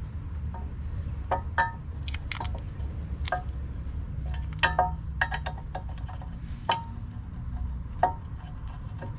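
Irregular light metallic clinks, about a dozen, each ringing briefly with a bell-like pitch that recurs from clink to clink, over a steady low rumble.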